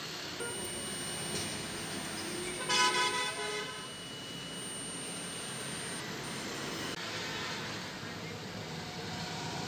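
A vehicle horn sounds once, a toot of about a second, about three seconds in, over steady street traffic noise. A faint, thin, steady high tone runs through the first part.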